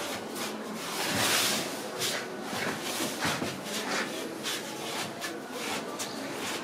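Palms rolling and rubbing a rope of twisted-doughnut dough back and forth on a floured board: rhythmic swishing strokes, about two or three a second, with a louder rush of noise about a second in.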